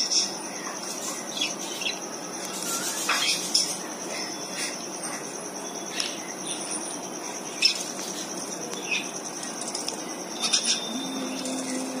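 Zebra finches chirping, with short high calls every second or two over a steady high-pitched hiss. A low steady hum comes in near the end.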